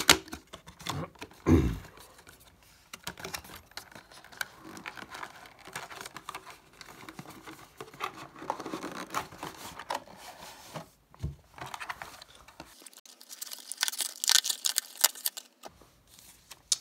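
Cardboard retail box being opened and handled: paperboard flaps scraping and knocking, with rustling of the packaging and a louder stretch of crinkling late on.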